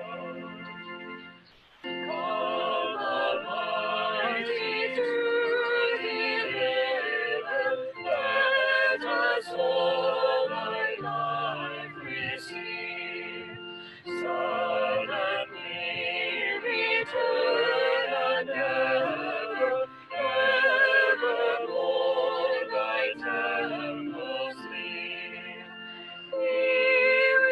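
A small mixed group of men and women singing a choral piece together in several parts, in phrases broken by short breaths every few seconds.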